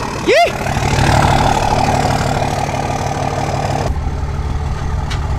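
A vehicle engine running steadily with a low hum, its sound changing about four seconds in.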